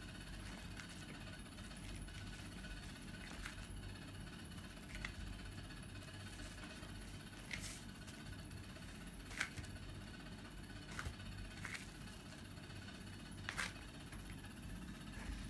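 Hands kneading sticky dough on a tabletop: faint squishing with scattered brief sticky clicks and taps, about one every second or two, over a low steady hum.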